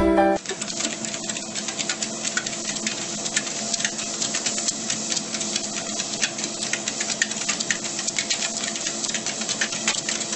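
A small motor-driven machine running steadily, a hum with rapid clicking over it, after a brief bit of music at the start.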